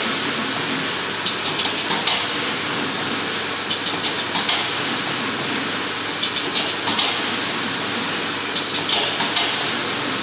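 Corrugated cardboard partition assembly machine running with a steady motor hum, broken about every two and a half seconds by a short burst of rapid clicking as it assembles each partition set, four cycles in all.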